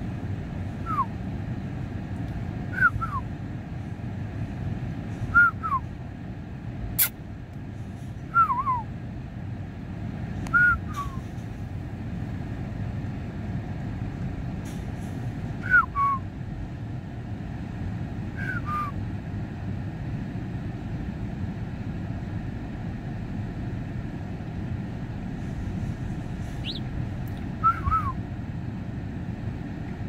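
Short whistled chirps sliding downward, mostly in quick pairs, repeated every few seconds over a steady low rumble, with one sharp click about seven seconds in.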